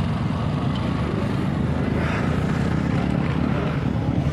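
Motorcycle engines running, a steady low rumble.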